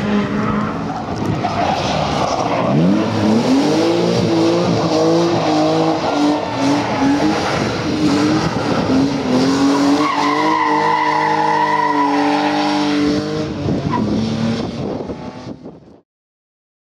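Rally car engines running at high revs, the pitch climbing and dropping as they shift, then a BMW 3 Series rally car's tyres squealing for about three seconds as it slides around a tarmac turn. The sound stops suddenly about a second before the end.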